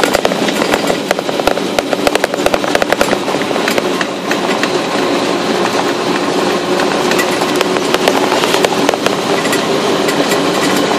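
Tyres crunching and rattling over a gravel road: steady, loud, dense crackling from the loose stones. An oncoming car passes the other way about halfway through.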